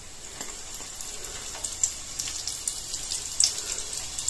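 Oats cutlets sizzling in hot oil in a frying pan as they are laid in one at a time: a steady hiss with small crackles, getting louder as more cutlets go in.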